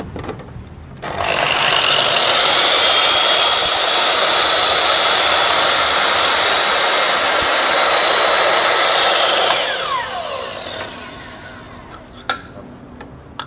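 Makita sliding compound miter saw switched on about a second in, its blade running and cutting across a wide wooden board as the head is slid through. When the trigger is released the motor coasts down with a falling whine, and a short knock follows near the end.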